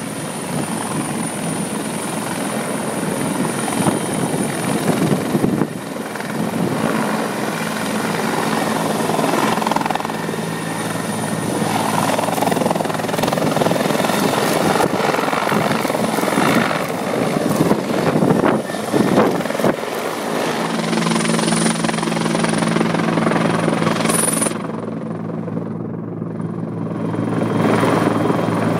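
CH-146 Griffon military helicopter running close by: the rotor thrum and a steady high turbine whine go on as it lifts off, hovers low and passes overhead.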